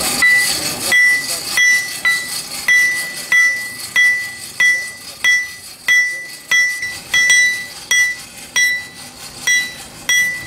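Hand hammer forging a red-hot billhook blank on a steel anvil: steady blows about one and a half per second, each one ringing with a clear high ring.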